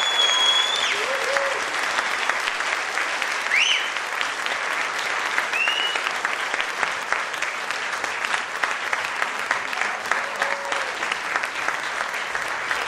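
Theatre audience applauding with high whistles: a long held whistle ends about a second in, and two short ones follow a few seconds later.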